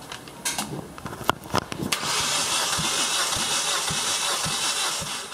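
Starter motor cranking a Kia G4FC 1.6-litre four-cylinder engine for a compression test. A few clicks come first, then about three seconds of steady cranking with faint regular compression pulses, which stops just before the end.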